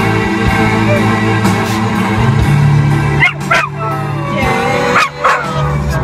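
A dog howling along to music: from about three seconds in, several short yelping howls that slide down in pitch, over a song with steady low tones.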